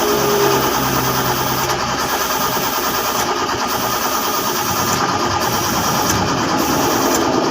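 Engine running steadily with a fast, even mechanical rhythm, on a vehicle that is hard to start.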